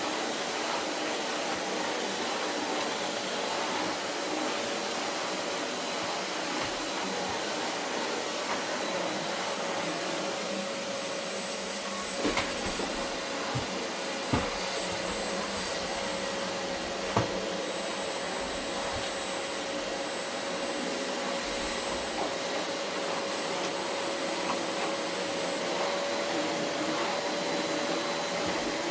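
Vacuum cleaner running steadily over carpet, a constant hum with a steady whine. A few sharp knocks come midway through.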